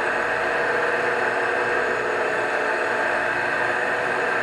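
Rotary floor polishing machine running steadily on a terrazzo floor, a constant whirring hum.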